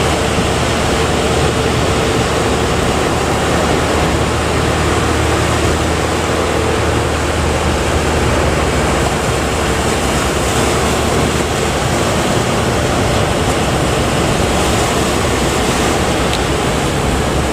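Steady rush of heavy breaking surf, with a low steady hum underneath through about the first half.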